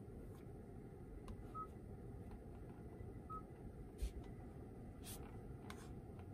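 Two short, high confirmation beeps from the Kia Stinger's infotainment touchscreen as menu items are tapped, about a second and a half apart, over a low steady room hum. A soft knock about four seconds in is the loudest sound, and there are a few faint clicks.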